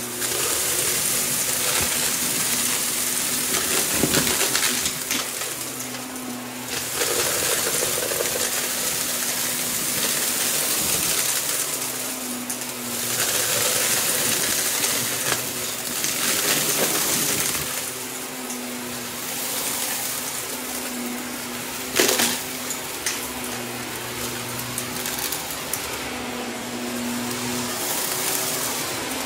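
Shark upright vacuum cleaner running on carpet, sucking up small scattered debris that clatters and rattles through the machine. Its rush swells and eases every few seconds as it is pushed and pulled, with one sharp clack about three-quarters of the way through.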